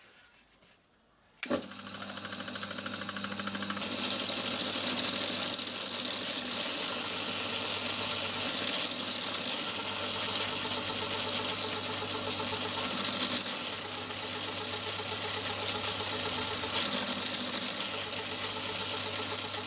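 Home-built micro lathe switched on with a click, then running steadily: motor hum with the whir and fine rapid clatter of the belt drive and spindle. The spindle is being driven through its modified cone clutch while a wooden stick is pressed against it to load it.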